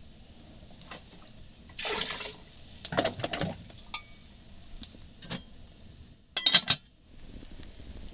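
Kitchen water and cookware sounds: a short pour of water about two seconds in, a few sharp knocks of an enamel mug against pots a second later, and a louder quick run of metal clinks after about six and a half seconds.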